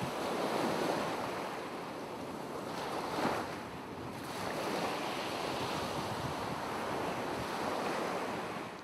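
Ocean waves washing, a steady rushing with a louder swell about three seconds in.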